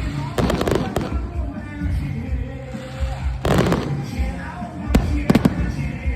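Fireworks going off in several sharp bangs: one near the start, one in the middle and two close together near the end. Loud music with a steady beat plays underneath.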